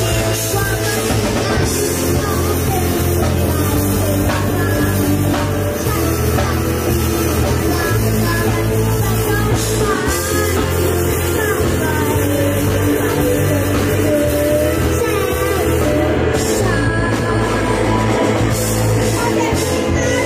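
A youth rock band playing a song: a boy's lead vocal over electric guitars, with a heavy, steady low end.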